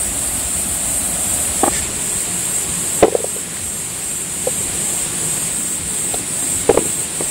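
Outdoor ambience: wind rumbling on the microphone under a steady high hiss, with a few faint clicks and rustles from a metal tool picking among spiky chestnut burs, one a little louder about three seconds in.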